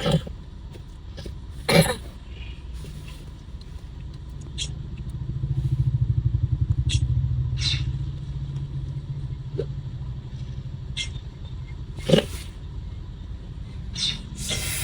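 Road traffic from inside a car: a steady low engine rumble, with another vehicle's engine swelling louder and pulsing from about four seconds in for around four seconds as it passes. There are two brief sharp sounds, about two seconds in and near the end.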